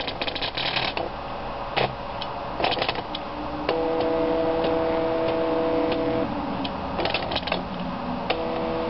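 Homemade pen plotter built from an old printer, drawing: its stepper motors and gear train give bursts of rapid clicking and rattling. From about four to six seconds in, and again near the end, the motors hold a steady whine of several tones.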